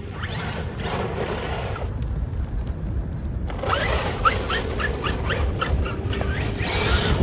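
Losi DBXL-E 2.0 electric RC buggy driving over dirt: steady tyre and drivetrain noise with wind on the microphone. In the second half comes a run of short rising chirps, a few per second.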